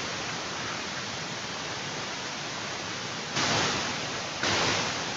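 Steady rushing hiss, with two louder surges of the same noise about three and a half and four and a half seconds in.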